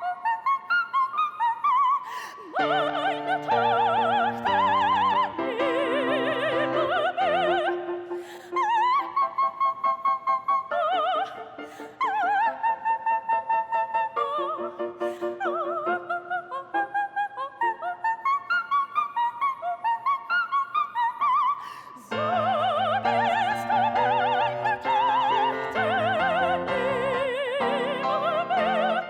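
Operatic singing: a voice with wide vibrato carrying a melody over instrumental accompaniment, in phrases with brief pauses between them.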